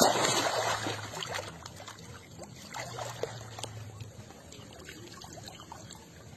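Water splashing as bodies plunge and move in shallow, muddy canal water: a loud splash right at the start, then quieter sloshing and small drips and laps.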